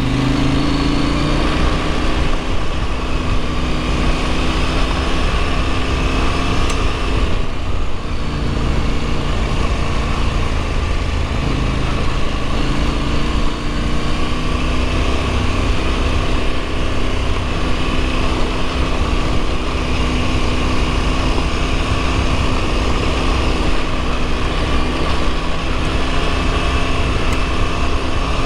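Husqvarna Norden 901's parallel-twin engine running under way at a steady riding speed, its pitch shifting a few times with the throttle, over steady wind and road noise on the gravel two-track.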